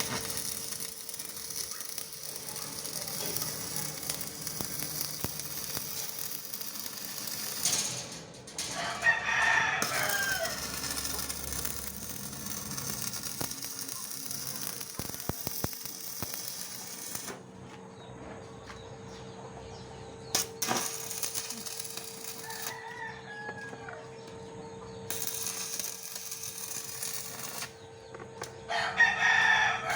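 A rooster crowing, loudly twice (about nine seconds in and near the end) and once more faintly in between. Underneath, a steady high crackling hiss like an electric welding arc stops and starts several times.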